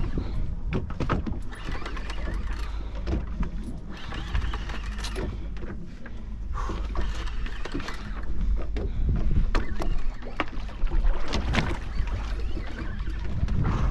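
Sounds of a small boat at sea: a steady low rumble with water noise and scattered clicks and knocks.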